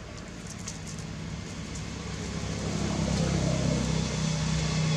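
A motor vehicle's engine hums steadily in the distance and grows louder from about halfway through, as if it is approaching.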